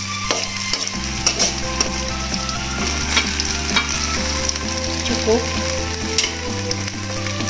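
Chopped shallots, garlic, chillies, lemongrass and leaves sizzling in hot oil in a stainless-steel wok while being stirred, the stirring utensil clicking and scraping against the pan every so often.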